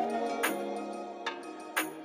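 Background music: sustained instrumental notes with a few sharp percussive strikes.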